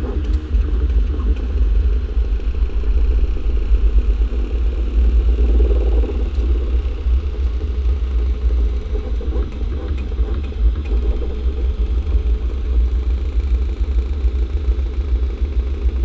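Original Prusa i3 MK3S 3D printer printing: the stepper motors driving the X and Y axes buzz and whir with shifting tones as the print head and bed move, over a steady low hum.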